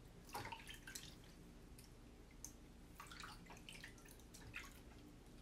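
Faint water sounds of hands rinsing paste off in a plastic tub of water: small splashes and drips, a few at a time, scattered through.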